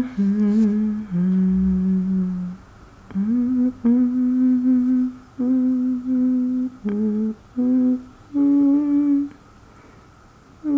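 A woman humming a slow tune to herself in short held notes with brief pauses between them, falling quiet near the end.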